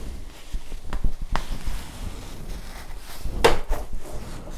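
Hand-sewing handling noise: cotton fabric rustling and embroidery thread being pulled through felt, with a few light clicks and knocks. About three and a half seconds in there is a louder swish as the thread is drawn out.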